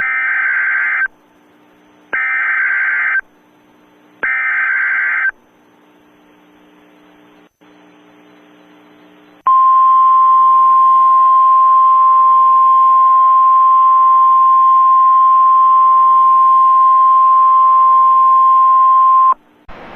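Emergency Alert System test broadcast: three bursts of digital header data, each about a second long and two seconds apart. After a few seconds' pause comes a single steady attention tone, held for about ten seconds. Together they announce the alert that follows, here the coordinated monthly test.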